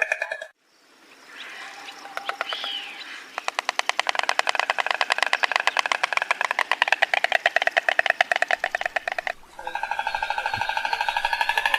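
White stork clattering its bill: a rapid, even rattle of strokes lasting about six seconds, preceded by faint softer calls.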